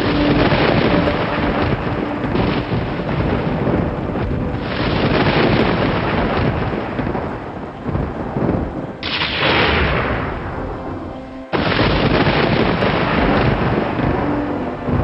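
Thunder rumbling almost without pause over steady rain, loud throughout. A fresh crack sets in suddenly about nine seconds in, and after a brief lull another loud peal starts abruptly near the twelve-second mark.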